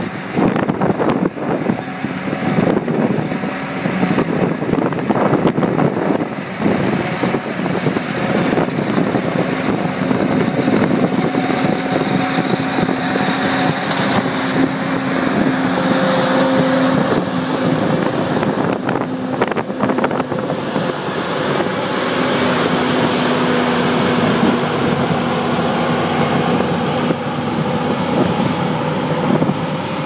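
Forage harvesting machinery at work: a John Deere self-propelled forage harvester chopping maize alongside a tractor and trailer, giving a loud, continuous engine and chopper drone. A steady hum settles in after several seconds, with wind buffeting the microphone at times.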